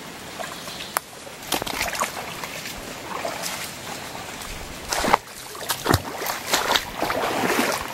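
Footsteps wading through a shallow stream, water sloshing and splashing with each step, irregular splashes with a run of louder ones about five seconds in.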